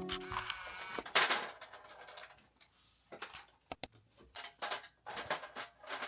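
Objects being handled and put down: an irregular run of short knocks, clicks and rustles, the loudest about a second in and two sharp clicks in quick succession a little later.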